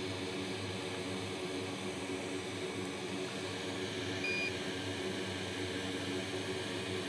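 Steady electrical hum and fan noise of bench electronics, with one short high electronic beep a little over four seconds in.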